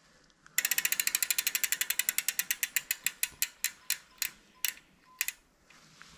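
Mountain bike rear freehub ratcheting as the wheel turns without pedalling: a rapid ticking that slows down to separate clicks over about five seconds as the wheel loses speed.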